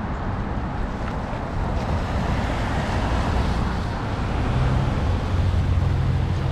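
Outdoor street ambience: wind buffeting the microphone over a low traffic rumble, with a vehicle's engine hum growing louder about four and a half seconds in.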